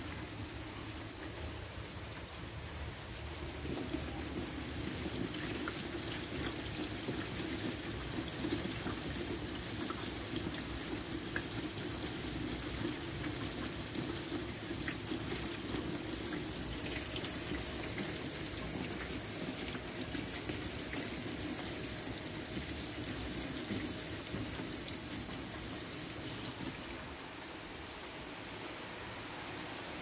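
Steady rain falling on a wet walkway and splashing into shallow puddles, with faint scattered drip ticks. A steady watery rush underneath grows louder about four seconds in and eases near the end.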